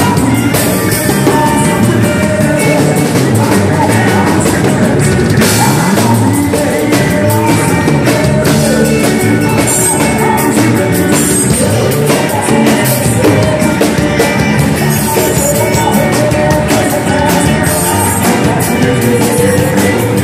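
Live band playing loud, steady music: drum kit, electric bass guitar and acoustic and electric guitars, with some singing.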